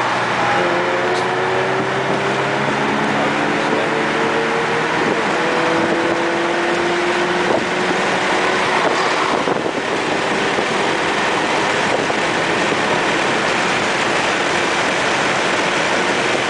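Car engine pulling under hard acceleration, heard from inside a car's cabin, its pitch climbing slowly for several seconds at a time over a steady rush of road and wind noise.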